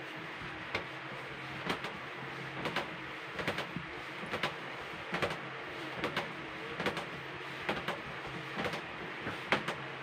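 Marshmallow fondant being kneaded by hand on a metal worktop: a short thump or slap about once a second as the dough is pushed down and turned.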